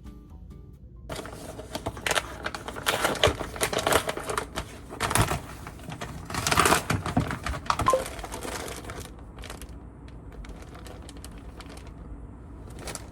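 Quick clicks and rustling, as of things being handled, loudest from about two seconds in to about nine seconds in, then sparser and quieter.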